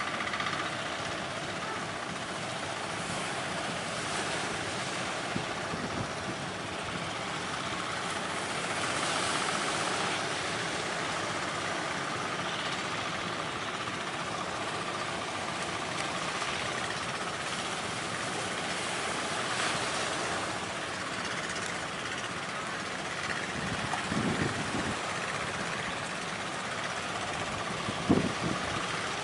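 Sea waves washing and wind blowing, with a fishing boat's engine running steadily offshore. A couple of short low thumps near the end.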